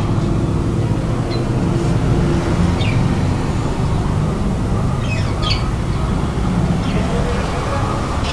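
Steady low mechanical rumble, with several short high chirps scattered through it.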